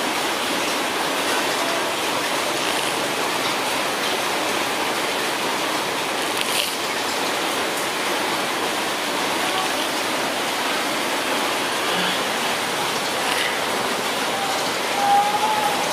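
Steady, even hiss of noise, with a short squeaky tone near the end.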